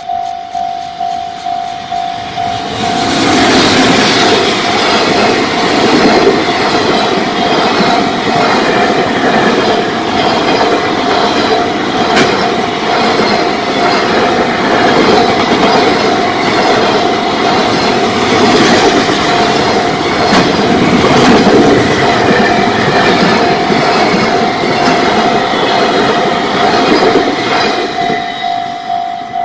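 A freight train passing for about 25 seconds, rattling with repeated clicks of its wheels over the rail joints. Throughout, a level-crossing warning bell rings steadily at about two strikes a second.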